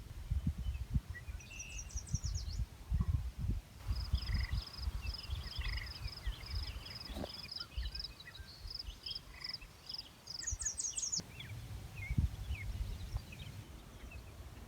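Wild birds singing and calling, with one bird repeating a short high note about twice a second through the middle and quick high trills near the start and again about ten seconds in. An irregular low rumble runs underneath.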